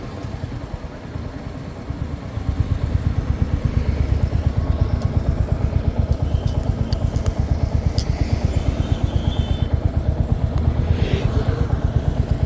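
Royal Enfield Hunter 350's single-cylinder engine idling with an even exhaust thump, about six or seven beats a second. The beat settles in and grows louder about two seconds in, after a quieter, less even start.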